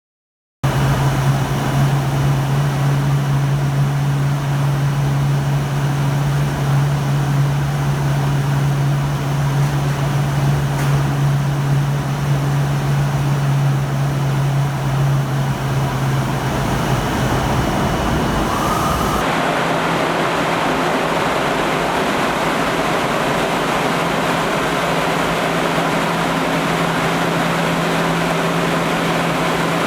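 Industrial fan running with a steady low hum and rushing air. Just after two-thirds of the way through, the sound shifts abruptly: the hum steps up in pitch and the air rush grows as the vane control damper changes position.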